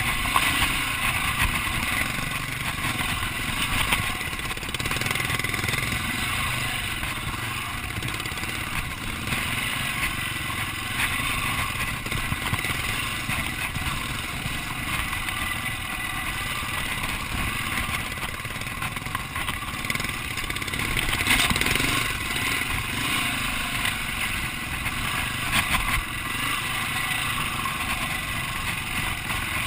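Dirt bike engine running at a low, steady trail pace over loose rock, with a few louder knocks and clatters along the way.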